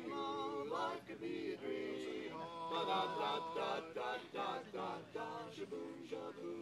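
Male quartet singing a cappella in close harmony, several voices holding and moving chords together.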